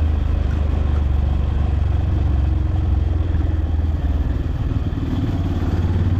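Motorcycle running steadily while riding along a road, with a heavy low rumble throughout.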